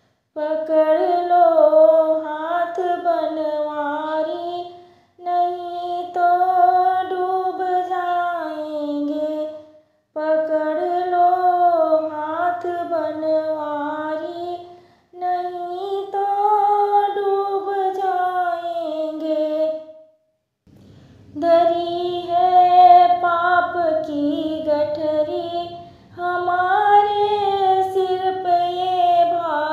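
A woman singing a Krishna bhajan solo, without accompaniment, in phrases of about four to five seconds with short breaks for breath between them.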